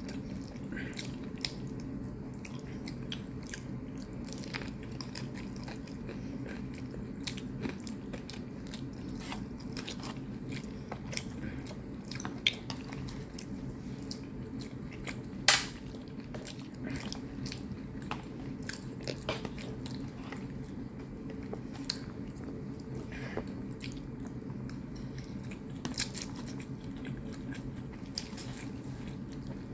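Close-up chewing and biting of instant noodles and pan-fried dumplings, with many small wet clicks and one sharper click about halfway through. A steady low hum runs underneath.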